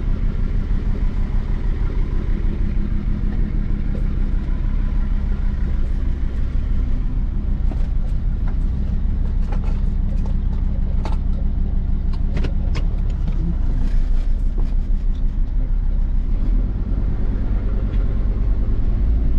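Jeep Grand Cherokee WJ's 2.7 CRD five-cylinder turbo-diesel running steadily on the move, heard from inside the cabin. The engine is on a test drive with freshly fitted 3D-printed injector seals. A few light clicks and rattles come between about eight and fifteen seconds in.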